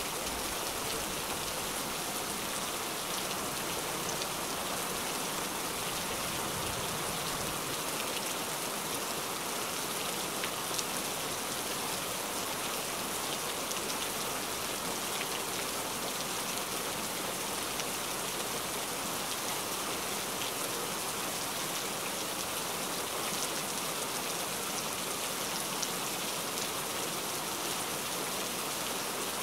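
Heavy rain falling steadily: an even hiss with scattered drops ticking through it.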